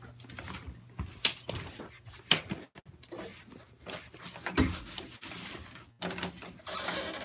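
Handling noise from a phone being moved about: scattered light knocks and rustling, with a longer rustle near the end.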